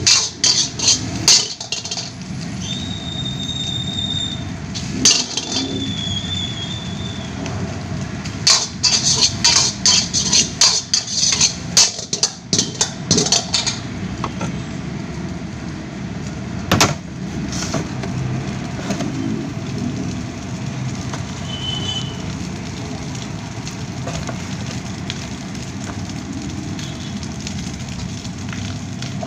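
A metal spatula clanging and scraping against a wok in quick, irregular strikes through the first half, with a couple of short high scraping squeals. A steady rushing noise runs underneath.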